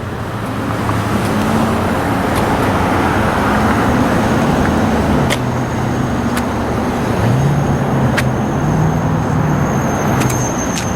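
Steady freeway traffic passing below an overpass: a continuous rush of tyres and wind with the low hum of vehicle engines.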